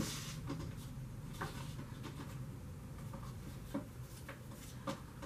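Quiet room with a steady low hum and a few soft, separate clicks and taps of craft supplies being handled off to the side, about four in all.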